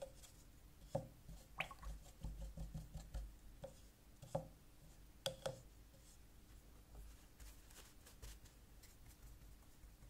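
Faint taps and clicks of a paintbrush being rinsed in a jar of water and knocked against the jar and the wells of a plastic paint palette: a quick run of small taps about two seconds in and a few louder single clicks, then little sound after about six seconds.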